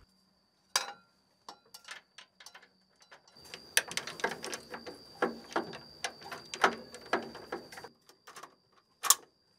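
Metal clicks and clatter of an AK-pattern rifle being fitted into the firing-port mount inside a BMP-1 infantry fighting vehicle. There is a single knock about a second in, a run of clicks and rattles through the middle, and a sharp click near the end.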